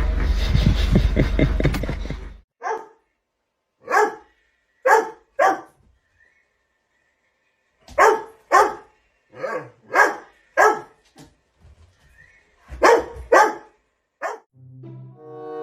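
A loud steady noise cuts off about two seconds in, then a dog barks about a dozen times in uneven groups of short sharp barks. Music starts near the end.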